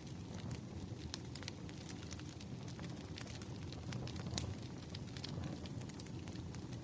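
Burning firewood crackling: irregular sharp pops and snaps over a steady low rumble.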